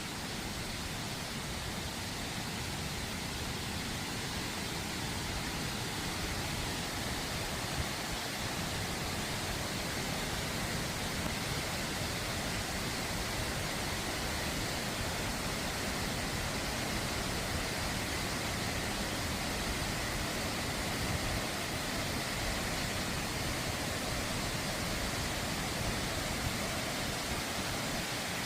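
Steady rush of a large waterfall: falling water making an even, unbroken noise.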